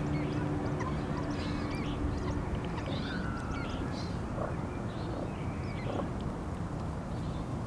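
Waterbirds calling: many short, high chirping calls scattered throughout, over a steady background hum. A low drone underneath fades out about two and a half seconds in.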